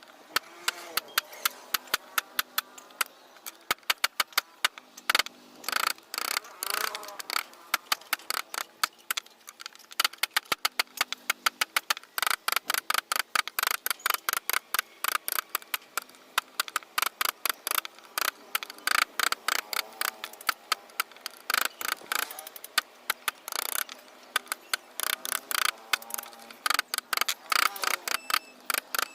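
Rapid, irregular sharp taps of a hand chisel (V-gouge) being struck into wood to cut carving lines, several a second.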